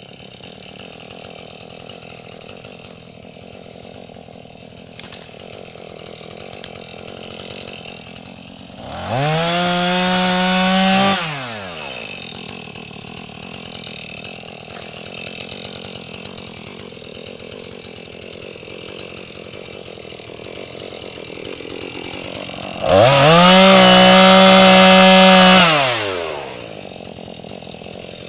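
Two-stroke Jonsered chainsaw idling, revved up to full throttle twice: briefly about nine seconds in, and for about three seconds near the end, each time rising, holding, then falling back to idle.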